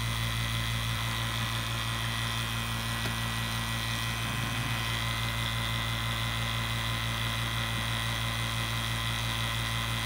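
CPS VPC2SU 115-volt HVAC vacuum pump running with a steady, even hum while it pulls a deep vacuum, down around 800 microns, through the closed-off gauge manifold and hoses.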